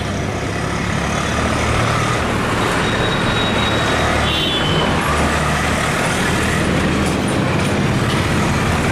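Road traffic: vehicle engines running and passing close by, a steady mix of engine and road noise.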